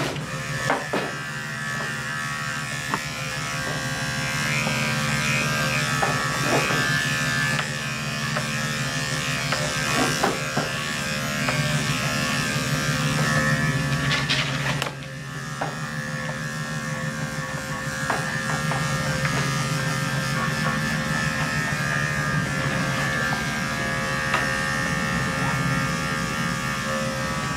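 Electric dog-grooming clippers running with a steady buzz as they cut through a Russian Bolonka's curly coat, briefly dipping in level about halfway through.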